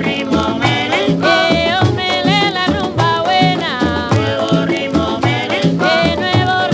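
A salsa record playing: an instrumental stretch with a steady Latin beat under melody lines that slide up and down in pitch.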